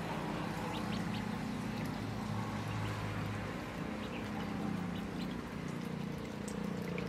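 Ducklings peeping in short high chirps as they paddle about in a tub of water, over a steady low hum.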